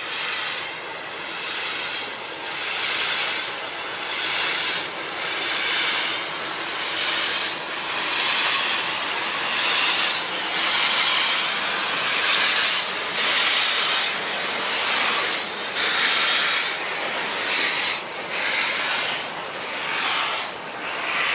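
BR Standard Class 2MT steam locomotive passing slowly with a freight train, its chuffs and the steam hissing from around its cylinders coming as rhythmic hissing pulses about once a second, over the rumble of the tank wagons rolling on the rails.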